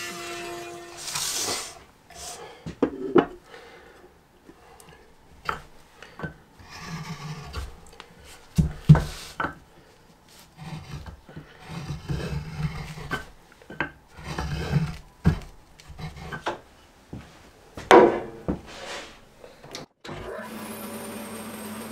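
Wood being worked with a hand tool: irregular scraping and rubbing strokes with a few sharp knocks, the loudest about 9 and 18 seconds in.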